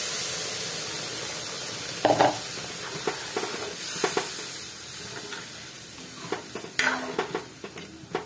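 Water poured into a hot kadhai of spiced potato-tomato curry sizzles with a steady hiss that gradually fades. From about two seconds in, a ladle stirs the curry, scraping and knocking against the pan a number of times.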